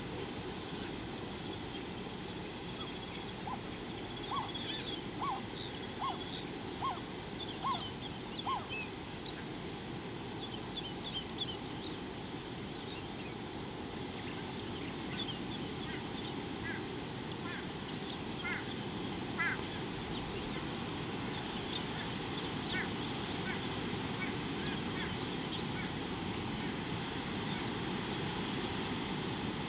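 Wild birds calling over a steady low background rumble. One bird gives a run of about seven short, evenly spaced calls a few seconds in. Higher, thinner chirps follow, scattered through the rest.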